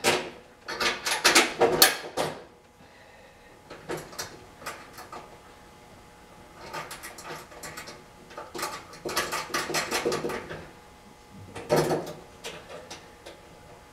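Metal clicks and clinks in short bursts as bolts and nuts are fitted and tightened on a forced-air kerosene heater's steel handle frame, with a denser run of clicking partway through and a single louder knock near the end.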